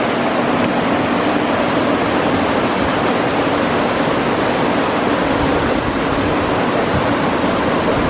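Steady rushing of water, a dense even hiss with no breaks.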